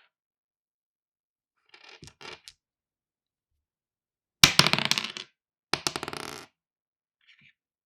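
Two dice thrown onto a wooden table, clattering and rolling to a stop. A faint short rattle comes about two seconds in, then a loud throw a little past four seconds and a second throw just after it, with a faint tick near the end.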